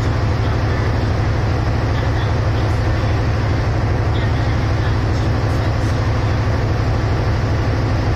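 Steady low drone of the standing SE3 passenger train's diesel engine running at idle, with no change in pitch or level.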